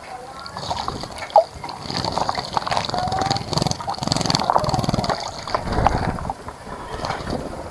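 Water in a bird bath splashing and sloshing in uneven bursts as birds bathe, with one sharp click about a second and a half in.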